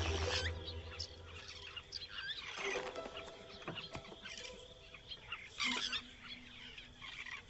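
Wild birds chirping and calling in natural woodland ambience: many short chirps that rise and fall. A louder, brief sound stands out a little before six seconds in. Background music fades out in the first second.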